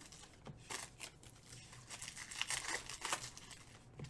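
Foil trading-card pack wrapper crinkling and tearing as it is handled and opened by hand, in several short rustling bursts.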